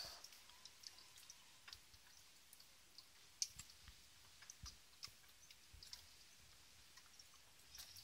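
Near silence, broken by faint scattered small clicks, the clearest about three and a half seconds in.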